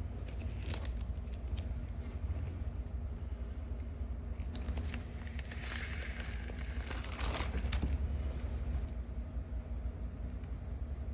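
Rustling and crinkling of record packaging being handled, loudest about seven seconds in, over a steady low rumble.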